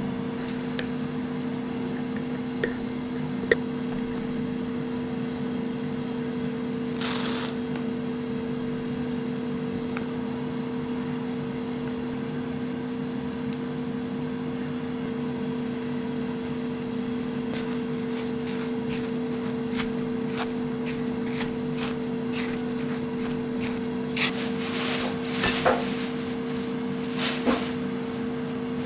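Air fryer running with a steady fan hum. About seven seconds in there is a brief rustle of dry ingredients being tipped in, and near the end clicks and scrapes as they are stirred with a silicone spatula in a glass bowl.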